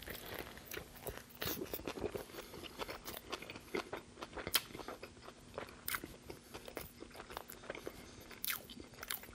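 Close-miked eating: a bite into a Burger King Double Whopper, then chewing with many short wet clicks and crunches from the mouth.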